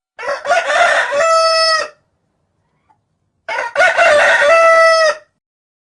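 Rooster crowing twice, each crow just under two seconds long, starting rough and ending on a held note.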